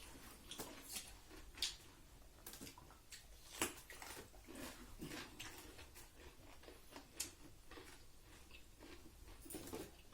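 Faint eating sounds: chewing and soft mouth and food clicks scattered throughout, with a couple of sharper clicks about one and a half and three and a half seconds in.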